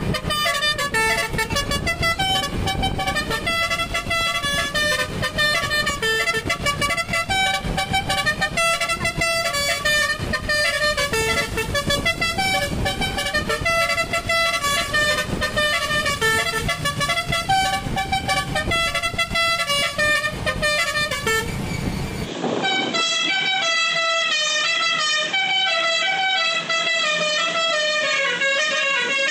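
Basuri telolet bus air horn playing a fast tune of short stepped notes, sped up to 1.3x. About 22 seconds in it cuts abruptly to another recording of the horn, thinner and without the low rumble, still playing its note sequences.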